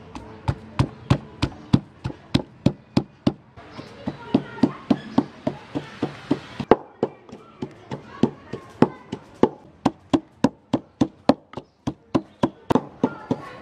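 Wooden pestle pounding garlic and red chilies in a wooden mortar: a steady run of knocks, about three a second.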